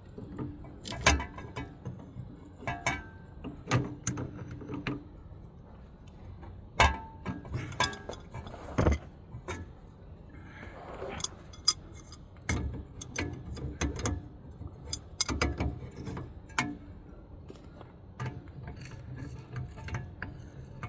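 Irregular metallic clinks and knocks of hand tools and steel steering parts being handled and worked, with a brief rustling scrape near the middle.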